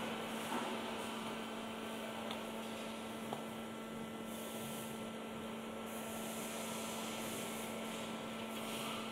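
CNC hot-wire foam cutting machine switched on and humming steadily with an electrical hum. Two faint taps about half a second and three seconds in, as foam blocks are set down on the machine table.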